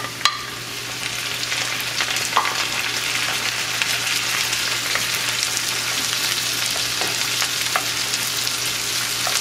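Raw shrimp sizzling in hot oil in a cast-iron skillet with onions; the sizzle swells over about the first second as the shrimp hit the pan. A wooden spoon stirs them, with scattered knocks against the pan.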